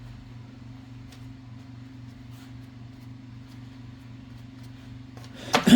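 A steady low hum, with a few faint small clicks from typewriter parts being handled, and a brief louder noise near the end.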